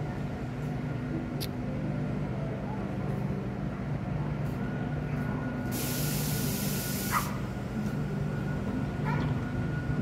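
Class 319 diesel locomotives hauling a work train, their engines a steady low hum as they approach. About six seconds in there is a sharp burst of hiss lasting about a second and a half.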